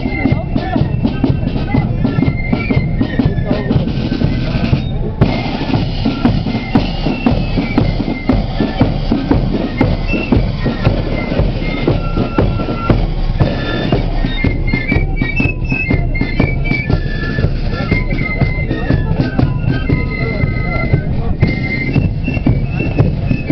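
Marching flute band playing: high flutes carry a melody over steady bass drum and side drum beats.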